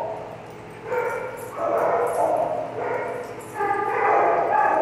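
Dogs barking and yowling, about four drawn-out calls in a row.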